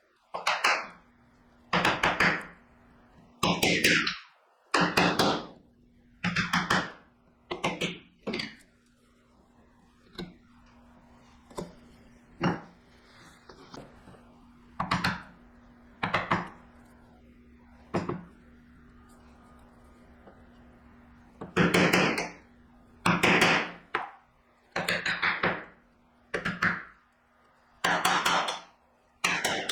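Steel chisel being struck repeatedly to chop waste from the pins of a walnut dovetail joint: sharp knocks about once a second. Lighter taps follow in a lull through the middle, then another run of blows near the end.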